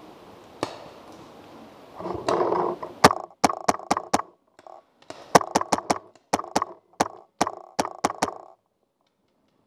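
Paintball marker firing in quick strings: about five sharp shots, then after a short pause about a dozen more in rapid succession.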